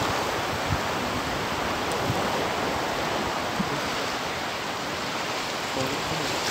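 Steady rush of choppy sea waves washing and lapping, an even noise without a break.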